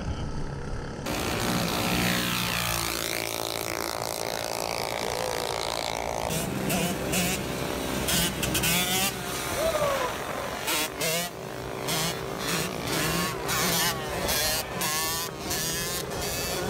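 Small mini bike engines running, their pitch falling away about two seconds in. From about six seconds in, music with a steady beat plays over them.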